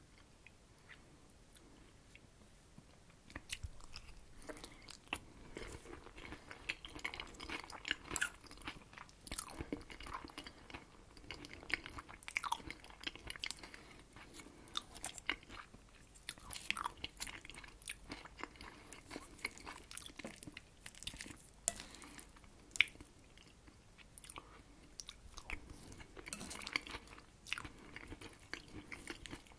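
Close-miked chewing of a mouthful of herring under a fur coat salad: irregular wet clicks and smacks of the mouth, starting about three seconds in after a short quiet stretch.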